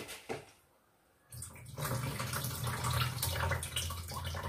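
Tap water running as lentils are rinsed, starting about a second and a half in after a short quiet gap.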